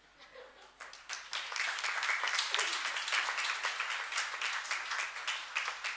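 A small audience applauding with hands, starting with a few claps and swelling into steady applause within the first couple of seconds.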